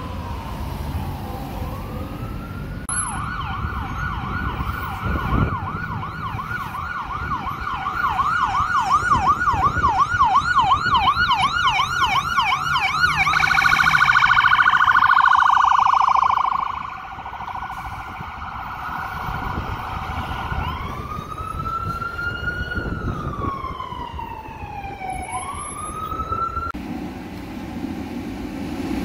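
Emergency vehicle sirens across several cuts: a fast yelp sweeping up and down a few times a second for about ten seconds, then a louder steady siren tone for a few seconds, then a slow wail rising and falling near the end.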